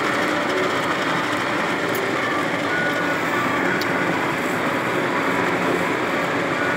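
Steady road noise of a car driving along a dirt road, heard from inside the cabin: a constant rush of tyres on the dirt surface over a low engine hum.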